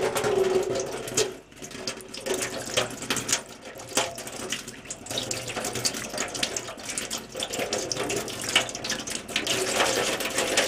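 Kitchen tap running, water splashing over cupped hands holding a rinsed egg yolk and into a stainless-steel sink, as a steady hiss broken by small splashes.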